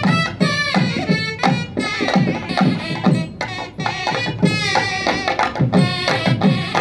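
Background music with a steady drum beat under a wavering melody.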